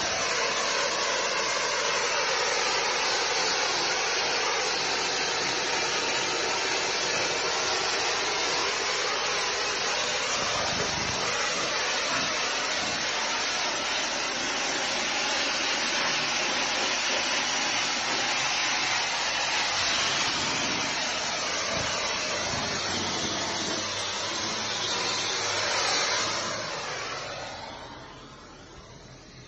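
Pressurised brick-cleaning jet hissing steadily as it is sprayed over brickwork, then dying away near the end.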